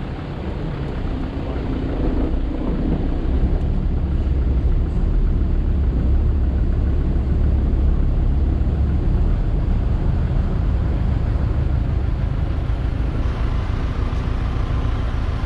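Car driving, a steady low engine and road rumble that grows louder about two seconds in.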